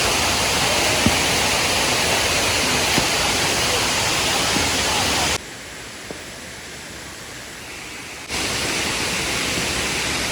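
Steady rushing of a waterfall, an even hiss of falling water. Partway through it drops suddenly to a much softer rush for about three seconds, then comes back at full strength, with a couple of faint taps early on.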